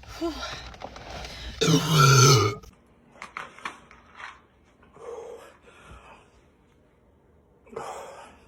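A person lets out one loud, deep burp about a second and a half in, lasting about a second, brought up by drinking fizzy Sprite. Faint clicks and a few short, quieter throaty sounds follow.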